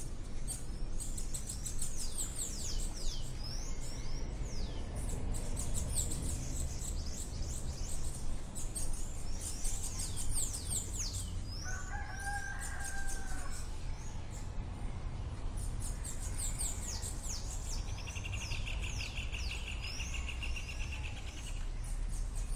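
Birds calling at dusk: many quick, high chirps that sweep downward, repeated over and over, with one drawn-out call in the middle and a buzzy trill near the end, over a low steady rumble.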